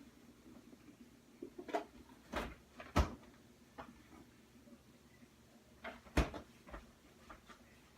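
A scattered series of sharp knocks and clicks, like objects being handled and set down, loudest about three seconds in and again just after six seconds.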